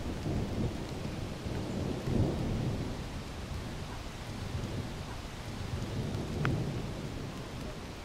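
Waterfall pouring into a plunge pool: a steady, deep rush of falling water that swells and eases in loudness.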